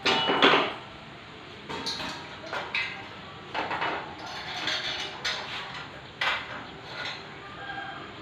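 Stainless steel window grill being handled and fitted against a window frame, its metal bars clanking and rattling: a loud clatter in the first second, then scattered knocks and clinks with a faint metallic ring.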